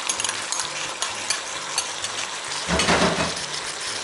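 Herring, fried onion and carrot sizzling in a frying pan under freshly poured sour-cream sauce: a steady crackling hiss with small pops, and a brief louder rush of noise about three seconds in.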